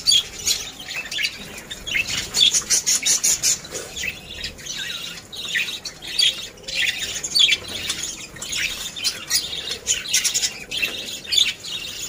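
Small cage birds in an aviary, Java sparrows among them, chirping continuously: many short, high chirps overlapping one another.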